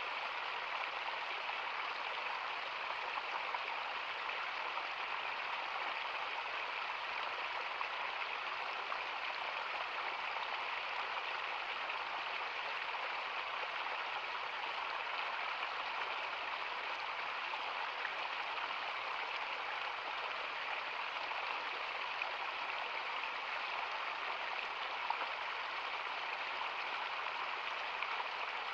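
Water running steadily, an even hiss with no change in level.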